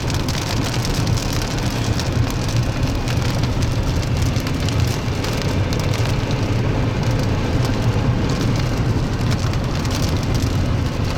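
Steady rain with many fine drop ticks over a constant low rumble.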